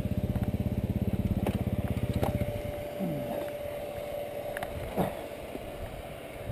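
Dirt bike engine idling with an even putter, then cutting off about two and a half seconds in. A few sharp knocks follow.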